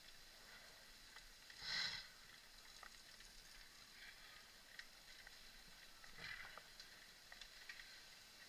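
Faint riding noise of a mountain bike on a dirt forest singletrack, with a few small ticks and two short louder rushes of noise about two and six seconds in.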